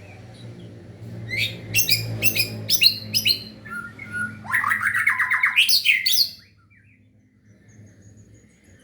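White-rumped shama (murai batu) singing: a string of sharp whistled notes, then a fast rattling trill from about four and a half seconds in that cuts off suddenly near six seconds, followed by faint thin high notes. A low steady hum lies under the first part.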